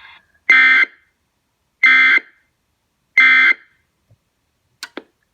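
NOAA Weather Radio SAME end-of-message data code, the three short buzzing digital bursts that close a required weekly test, sounding from a weather radio receiver. The three bursts are identical and about 1.3 seconds apart, followed near the end by a couple of faint clicks.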